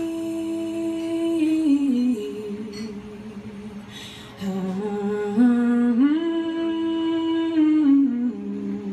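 Two female voices singing a wordless a cappella harmony in long held notes. The chord steps down in pitch about two seconds in, a new held chord rises about six seconds in, and it steps down again near the end.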